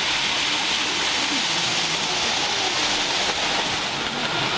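Several OO-gauge model trains running around a layout: a steady hiss of wheels and motors on the track, with faint voices behind.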